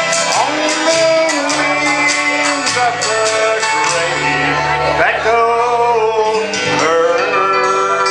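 Country song with a male voice singing over strummed guitar and a steady beat.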